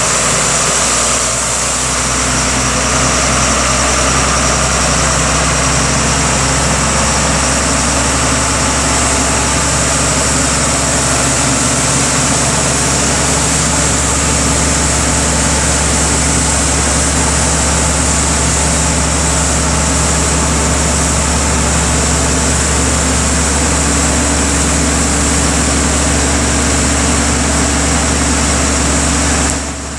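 A 2013 Freightliner 108SD Vactor vacuum truck's diesel engine running steadily while the hydraulic boom lifts the suction hose.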